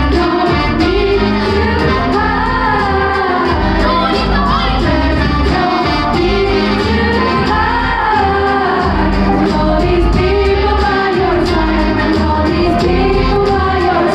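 A band playing a pop song with singing over a steady drum beat and bass.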